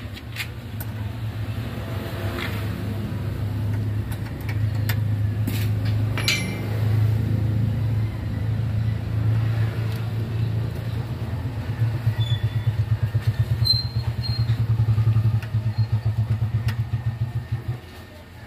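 An engine running with a steady low hum. It pulses more strongly in the second half and stops shortly before the end. A few light metallic clicks come from a T-handle socket wrench on an electric motor's terminal nuts.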